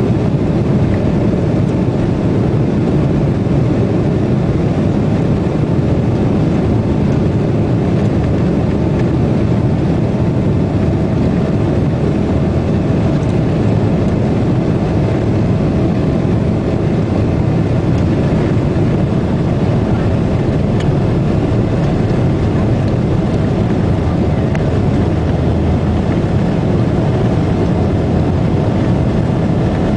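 Steady jet engine noise and rumble heard inside an airliner cabin while the plane taxis on the ground, with a faint steady whine over it.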